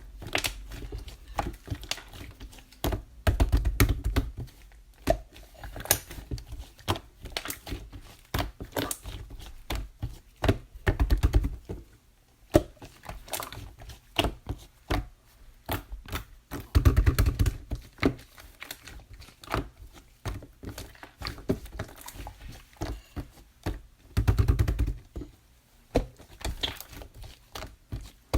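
Hands squeezing and stretching clay slime, making a steady run of small clicks and pops. About every six to seven seconds comes a heavier, deeper squish.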